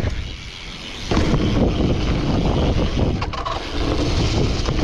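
BMX tyres rolling over packed dirt, with wind buffeting the microphone. The rolling noise falls away while the bike is airborne over a jump and comes back abruptly with the landing about a second in. There is a shorter lull a little past three seconds, then rolling again through a berm.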